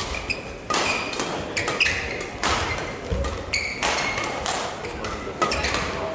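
Badminton rally: rackets striking the shuttlecock with sharp cracks every half second to a second, mixed with short squeaks of court shoes on the sports floor, ringing in a large hall.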